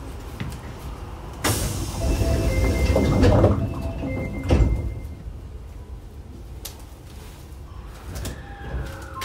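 Subway car's sliding doors closing: a sudden rush of door noise with short warning tones, ending in a thud as the doors shut about four and a half seconds in. Near the end, the 24 series' Hitachi IGBT inverter begins a rising whine as the train starts off.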